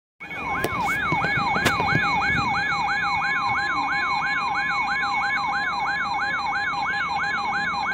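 Weather radio alert siren sounding for a severe thunderstorm warning: a fast, repeating rising-and-falling electronic wail, about two and a half sweeps a second, over a steady high alarm tone.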